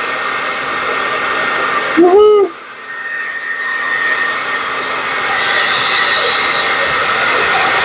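Hand-held hair dryer blowing steadily across wet acrylic pour paint on a tile. About two seconds in, a man shouts "woohoo"; right after, the dryer noise drops sharply and then builds back up over a second or so.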